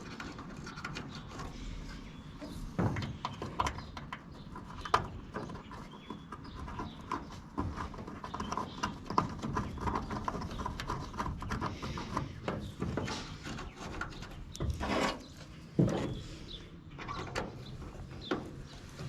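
Irregular clicks and clacks of hand tools and a plastic tail light housing as the light assembly's bolts are driven back in, with a few sharper knocks.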